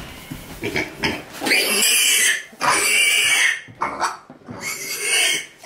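Sandy Oxford and Black piglet squealing loudly while it is lifted and carried, a run of shrill squeals with the longest lasting about a second each: the distress cry of a piglet being handled.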